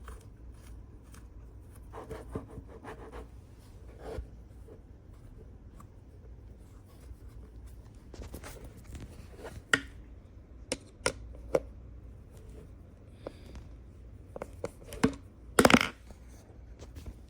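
Side table being handled and shifted: scattered scrapes and light knocks, then several sharp clacks in the second half, the loudest a short clatter near the end.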